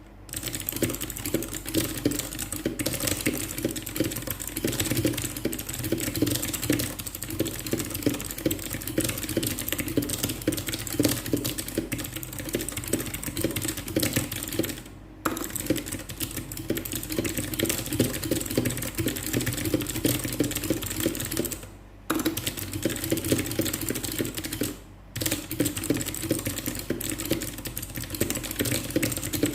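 Very fast typing on an RK61 mechanical keyboard with clicky blue switches: a continuous rapid clatter of keystrokes. It breaks off briefly three times, about halfway through and twice in the last third.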